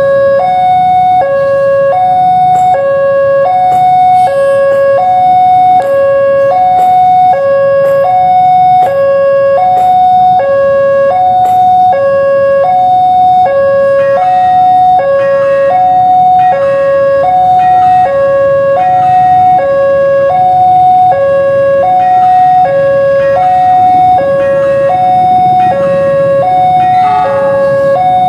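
Level crossing warning alarm sounding, an electronic two-tone signal that switches between a higher and a lower tone about every three-quarters of a second. It means the crossing is closed for a train movement.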